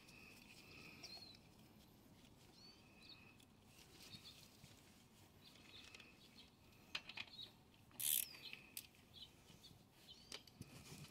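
Near silence with faint bird chirps scattered throughout, a few soft clicks, and one sharper click about eight seconds in.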